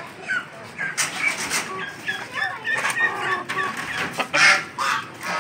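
Chickens clucking in short calls, with a louder call about four and a half seconds in. A few light clicks come from the latch of a wooden cage door as it is opened.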